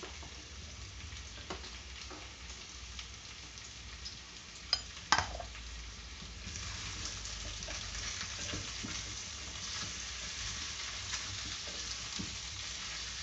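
Green beans, carrot and sweet potato sizzling in a pot on a gas burner while being stirred with a spatula. There are two sharp knocks about five seconds in, and the sizzling grows louder from the middle on.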